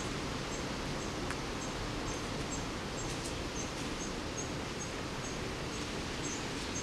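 Outdoor ambience: a steady hiss with a short, high chirp repeating about twice a second.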